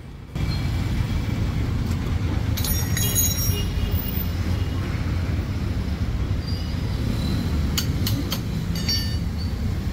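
Tyre-fitting work on a motorcycle wheel: a steady low machine rumble, with high metallic squeals about three seconds in and a few sharp clicks near the end.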